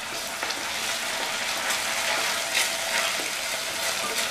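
Chopped vegetables and freshly added tomato, chilli and soy sauces sizzling in hot oil in a kadai, stirred with a wooden spatula that scrapes the pan several times.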